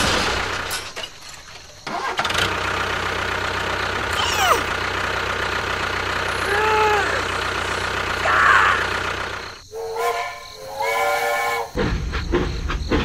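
Steady engine-like running noise. A few short swooping whistle-like tones sound over it, and a brief voice-like harmonic sound comes about ten seconds in.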